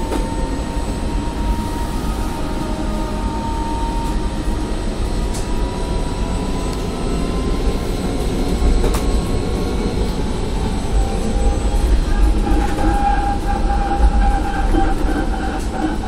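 Cabin noise inside a BredaMenarinibus Zeus electric minibus under way: a steady low road rumble with a thin motor whine that slowly glides in pitch as it speeds up and slows. A few sharp clicks or rattles come from the cabin.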